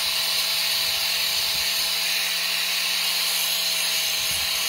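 Corded angle grinder running steadily with its disc against 1.5-inch PVC pipe, grinding the plastic down: an even, high hiss with a steady hum under it.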